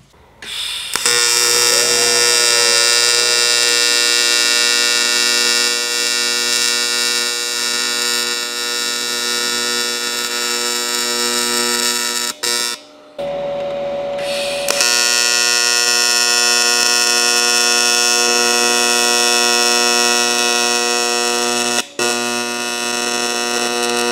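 AC TIG welding arc on aluminum from a Miller Dynasty welder, a loud, steady electric buzz as mounts are tacked and welded. It comes in two long stretches of about ten seconds each, with a brief break about halfway where the arc restarts.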